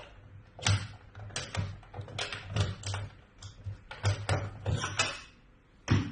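Hard plastic humidifier parts (water tank and heater base) being handled and fitted together: a run of a dozen or so irregular clicks and knocks, with a last sharp knock near the end.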